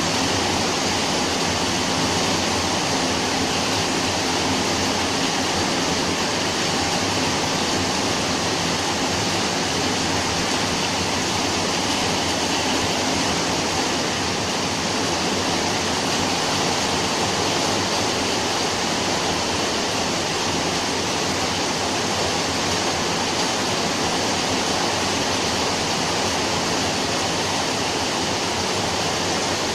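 Rain falling steadily: a dense, even hiss that holds level throughout, with no thunder or separate drips standing out.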